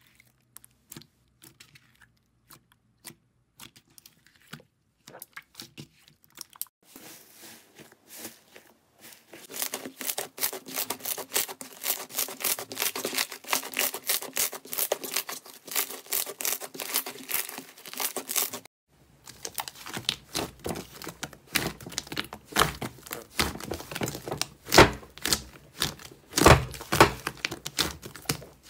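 Hands squeezing and kneading slime. Soft sticky clicks at first, then a dense run of crackling and crinkling from about seven seconds in. After a brief break, wet clicks and a few louder pops as a thick slime is pressed down with the fingers.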